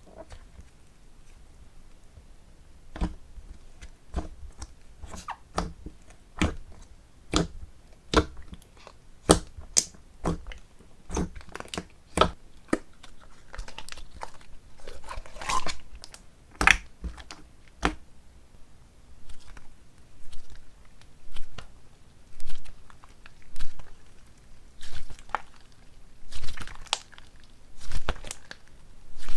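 Hands pressing, poking and stretching slime, giving sharp sticky popping clicks at first. From about two-thirds of the way in, it settles into a steady squishing about once a second.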